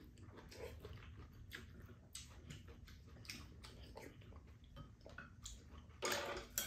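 Two people eating rice bowls: soft chewing and mouth noises with light clicks of spoons and chopsticks against bowls, and a louder burst of sound about six seconds in.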